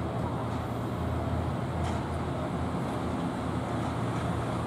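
Class 322 electric multiple unit drawing slowly into the platform, a steady low rumble and hum.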